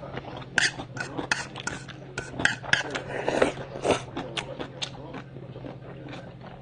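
Close-miked eating: metal chopsticks clicking against a small bowl, and slurping and chewing of tteokbokki rice cakes and noodles, with a denser burst of mouth noise about three seconds in.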